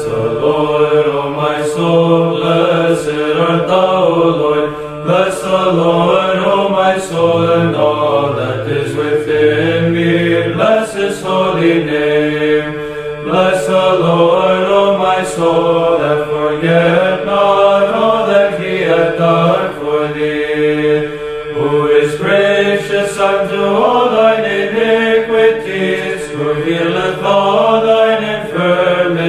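Sung chant over a steady held drone note, the melody moving in long rising and falling phrases.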